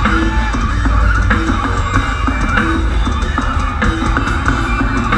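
Metalcore band playing live through a concert PA, heard from within the crowd: distorted electric guitars and bass over a drum kit with a heavy low end and regular drum hits.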